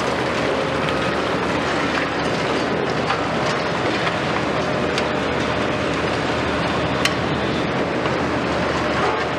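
Heavy demolition excavators' diesel engines running in a steady rumbling din, with occasional sharp knocks of concrete debris breaking and falling, the loudest about seven seconds in.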